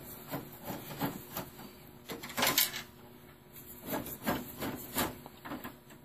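Magnetic-tip Phillips screwdriver backing out the screws that fix the power supply to a Dell OptiPlex's sheet-steel chassis. It makes an irregular run of small metallic clicks and scrapes, with a louder clack about two and a half seconds in.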